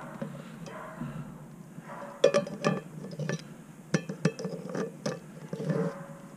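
Metal camp-cookware clinking: lidded mess-kit pots and their handles being handled on a campfire grate. There is a string of sharp clinks, some ringing briefly, mostly in the second half.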